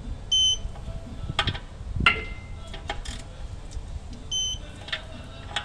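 Two short, loud electronic beeps about four seconds apart, with scattered metallic clicks and knocks of a wrench working on the clutch cover bolts between them.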